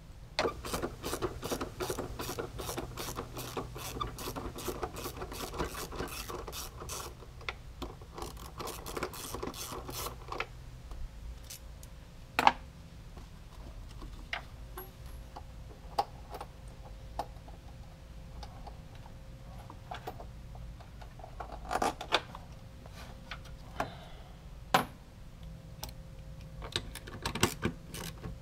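Ratchet wrench on a long extension clicking rapidly and evenly, about four clicks a second, as a bolt is backed out. The clicking stops after about ten seconds and gives way to scattered tool clicks and a few sharper knocks.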